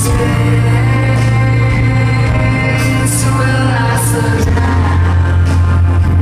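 A live band performs a synth-rock song loudly: a heavy, held bass note that steps down about four seconds in, under drums with repeated cymbal hits, keyboards, and singing.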